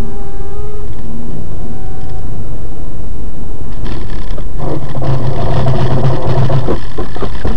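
Loud vehicle noise, a car or truck running on the road. A steady low hum sets in about halfway, and a few sharp knocks come near the end.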